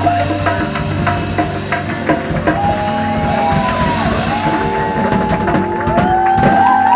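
Live rock band playing, with drums and electric guitar. In the second half the guitar holds long lead notes that bend and glide in pitch.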